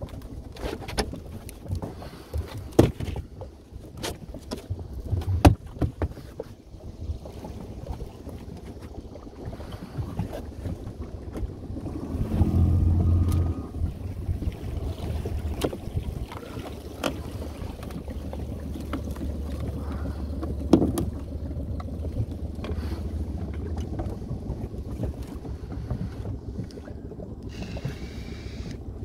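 Knocks and clatters of bushel baskets and a plastic bucket being handled in a small boat, over water lapping against the hull. A low steady drone runs through much of the middle and second half.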